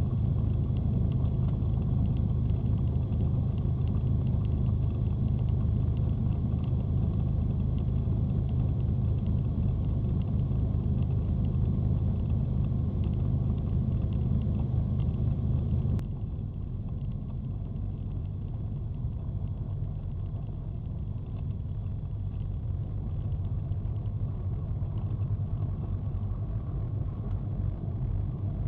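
Cessna 310 twin piston engines heard from inside the cabin, a steady low drone. About halfway through it drops abruptly to a lower, quieter running.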